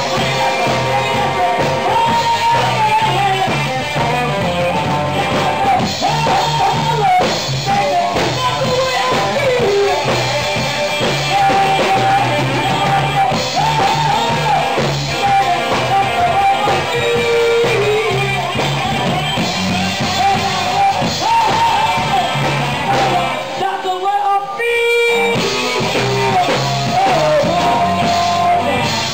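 Live blues band: a woman singing over electric guitar, electric bass and drum kit. About three-quarters of the way through, the band briefly drops out while a single note hangs on, then comes back in.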